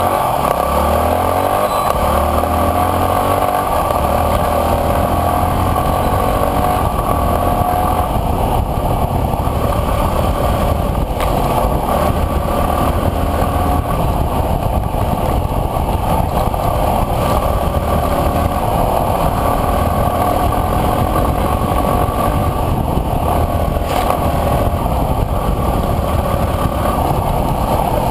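Enduro dirt bike's engine running while riding along a dirt trail, its revs rising and falling, loud and continuous.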